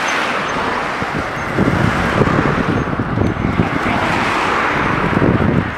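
Cars passing close by on the highway, tyre and road noise swelling as one goes by at the start and another a little past halfway. From about a second and a half in, a louder low rumbling buffets the microphone.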